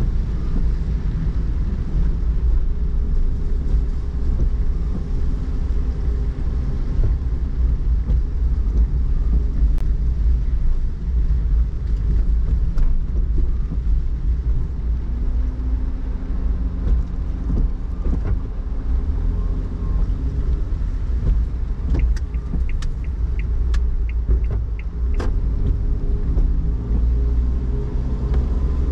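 Car driving slowly along wet city streets, heard from inside the cabin: a steady low rumble of engine and tyres on the wet road. A few short sharp ticks come about two-thirds of the way through.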